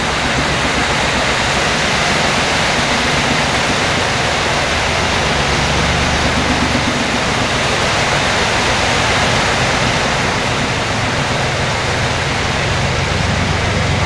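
Heavy rain falling in a steady, loud hiss. Underneath, the old road roller's engine runs with a low hum that grows louder near the end as the roller comes closer.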